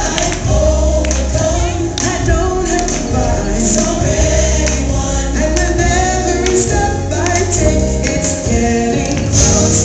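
Gospel music: a choir singing over a band accompaniment with a steady beat.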